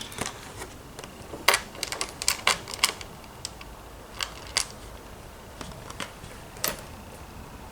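Scattered small clicks and taps of plastic and metal washers and bolt hardware being handled and fitted onto a planer board, a few close together early, then single clicks spaced out.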